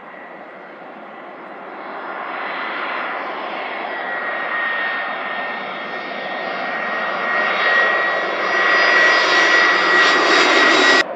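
Jet airliner's engines passing close, the noise building steadily with a high whine over it, then cutting off suddenly near the end.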